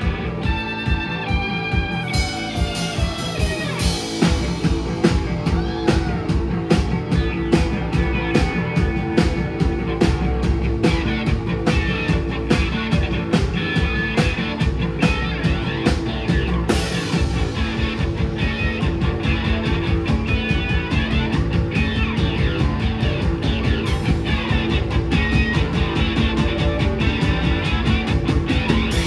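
A rock band playing live on two electric guitars, bass guitar and drum kit. It opens with a falling guitar line, and about two seconds in the drums settle into steady, rapid cymbal strokes under the guitars.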